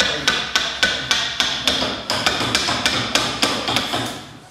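Steady hammer blows on a chisel cutting into timber, about three strikes a second, each with a short bright metallic ring.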